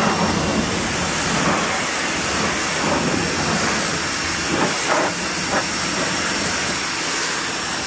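Ryobi 1600 PSI electric pressure washer spraying, a steady hiss of water jetting from the wand onto a car wheel and tyre.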